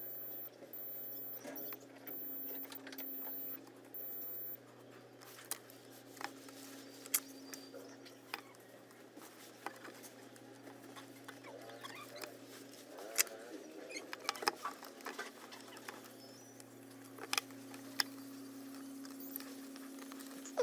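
Multimeter continuity beeper sounding in five short, very high-pitched beeps as the probes touch a circuit-board trace, signalling that the trace is shorted. Then the probes tap and click against the board over a steady low hum.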